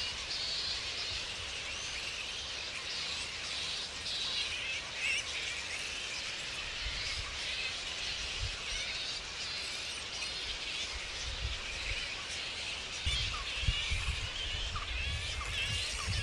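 A roosting colony of flying foxes chattering: a dense, unbroken mass of high squeaks and chirps from many animals at once. A low rumble comes in over the last few seconds.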